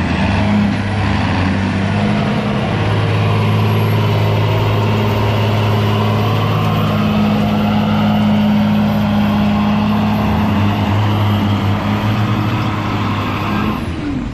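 Diesel engine of a fire truck at full throttle, pulling a weight-transfer sled, a steady loud drone with a thin high whistle above it. Near the end the engine drops off suddenly as the pull finishes.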